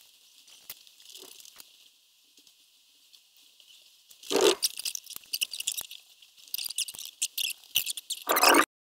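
Chalk scratching and tapping on paper in quick, irregular strokes. It is faint at first, turns loud from about four seconds in, and cuts off suddenly just before the end.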